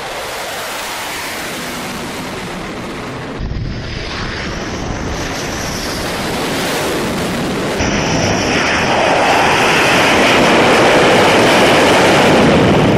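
Twin turbofan engines of J-15 carrier fighters running at high power on the flight deck: a steady rushing noise with a thin high whine over it, growing louder in steps and loudest in the last few seconds as a jet sits at full thrust at the take-off position.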